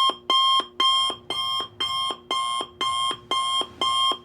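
Electronic alarm tone sounding about nine times in quick succession, roughly twice a second, each beep a two-note step from a higher pitch down to a lower one. It cuts in and out abruptly.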